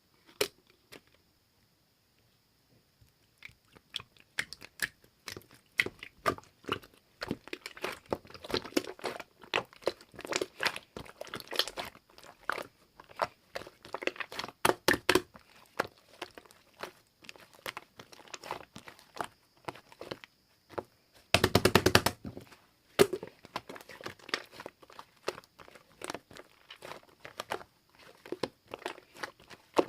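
Mixed slime being squeezed and poked by hand, giving off a quick run of crunchy clicks and crackles, with a dense burst of crackling about twenty-one seconds in.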